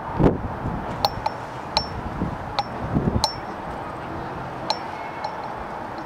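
Scattered light clinks, about eight in the first five seconds at irregular spacing, each short and ringing, over steady outdoor background noise.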